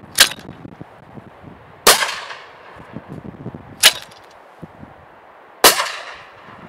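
A hand-held spring clay-pigeon launcher snaps twice, each snap followed about a second and a half later by a shotgun shot with a long fading echo: four sharp cracks in all.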